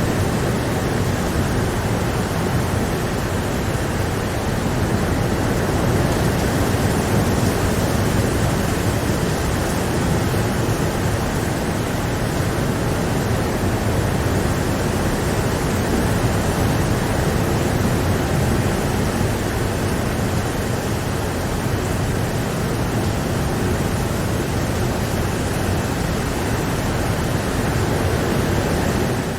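Rain falling steadily: an even, unbroken hiss with no separate drops standing out.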